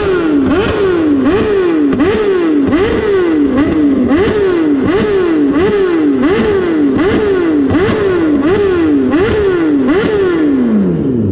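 BMW S1000RR's inline-four engine revved hard in quick, regular throttle blips, about three every two seconds, each one a sharp climb in pitch that sags back before the next. Near the end the revs drop away smoothly toward idle.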